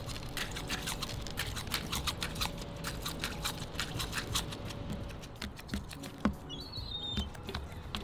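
A gull pecking dried mealworms out of a hand-held plastic cup: quick clicks of its beak on the plastic and rattling worms, many a second, thinning out after about five seconds. A short high chirp near the end, over a low wind rumble.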